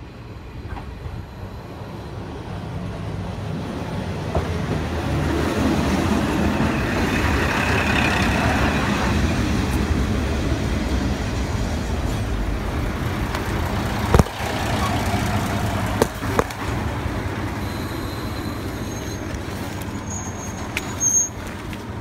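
A two-car JR KiHa 40 diesel railcar train approaching and running alongside the platform. The diesel and running noise builds over the first several seconds into a steady rumble, with a few sharp clicks in the second half.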